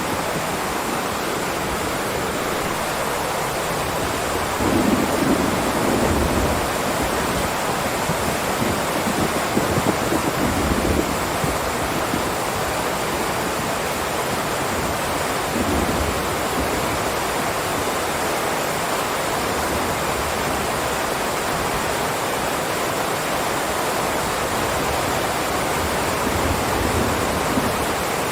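Heavy downpour of rain, a steady even hiss, with low rolling rumbles of thunder swelling about five seconds in and again around the middle.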